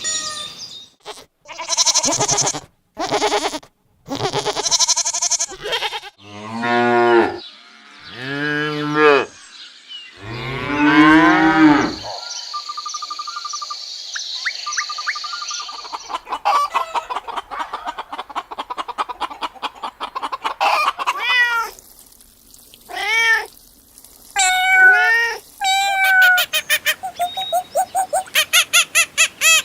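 A run of real animal calls one after another: long, low moos from a cow in the middle, then several short, rising-and-falling cat meows near the end.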